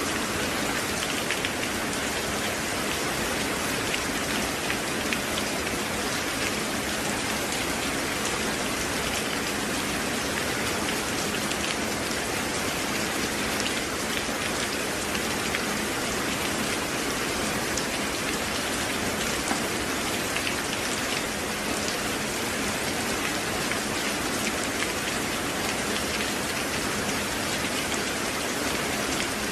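Steady rain falling: an even, unbroken hiss with individual drops ticking through it, with no thunder.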